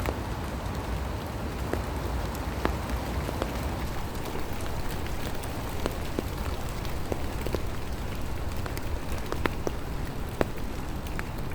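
Steady rain falling, a constant hiss with individual drops ticking and plinking at irregular moments.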